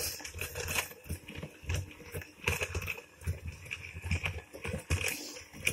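Crumbly biscuit dough being mixed in a glass mixing bowl: irregular scraping, rubbing and dull knocks against the glass and the wooden worktop.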